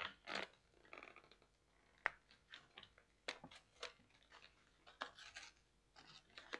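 Cardboard packaging of a webcam box being handled and pried open by hand: faint rustles and short, scattered clicks and crackles of card and paper.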